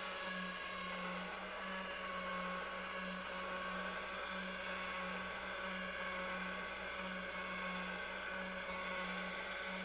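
Electric motor of a motorized pasta machine running steadily, a low hum with a faint whine above it, while the smooth rollers press a sheet of pasta dough thinner.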